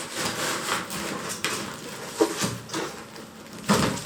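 A few knocks and clatters of household objects being handled, the loudest near the end.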